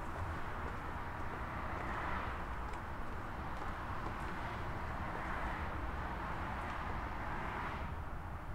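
Outdoor urban ambience: a steady wash of traffic noise over a low rumble, swelling a few times as if vehicles pass, with a few faint clicks.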